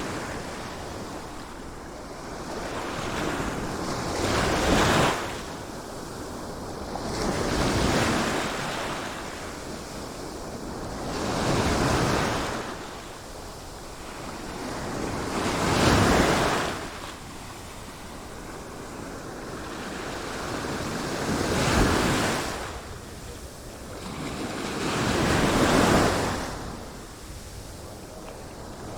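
Sea waves surging in and breaking, one about every four seconds, each swelling to a hissing peak and then dying away.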